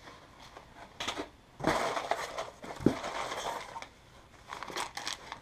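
Rustling and crinkling of packaging being handled, with a brief knock near the middle and a few light clicks near the end.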